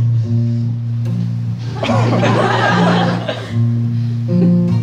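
Acoustic guitar strummed with sustained chords in an instrumental gap between sung lines. About two seconds in, a short burst of audience laughter rises over it for a little over a second.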